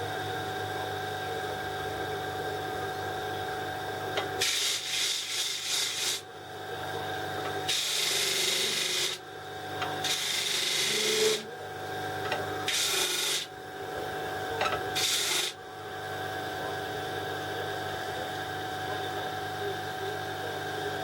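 A power tool's motor running steadily, with five bursts of abrasive rubbing about a second long each, from about four seconds in to about fifteen seconds in, as a CA-filled banksia pod blank is sanded back to a straight edge.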